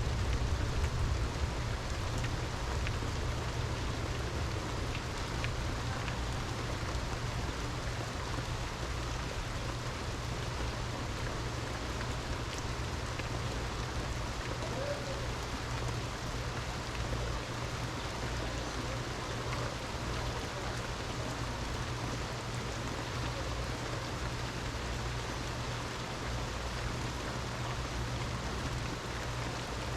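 Steady rain falling, an even hiss of drops with a constant low rumble underneath that is a little louder in the first second or two.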